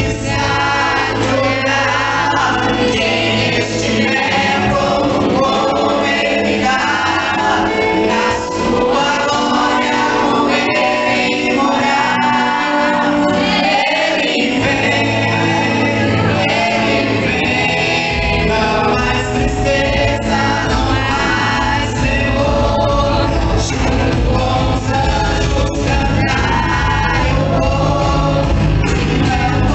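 A choir singing gospel music with instrumental accompaniment. The bass drops back for a stretch in the middle and comes back strongly about halfway through.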